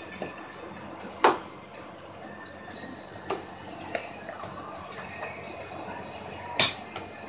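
Plastic trim and its clips being worked loose by hand, snapping and clicking: two sharp snaps, about a second in and near the end, with lighter clicks between.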